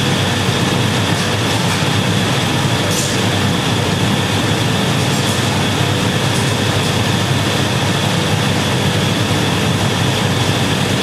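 Glassworks gas furnaces and ventilation fans running: a steady, even rushing noise with a faint hum, unchanging throughout.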